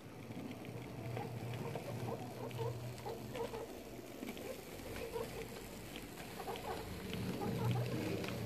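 TT-scale model steam locomotive hauling freight wagons along the layout track: a steady low hum from the running train, with many small irregular clicks of the wheels over the rail joints.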